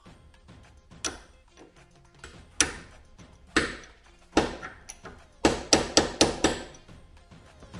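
A hammer strikes a steel punch to drive a new U-joint bearing cap into its yoke. There are sharp metallic blows, four spaced about a second apart, then a quick run of five near the end.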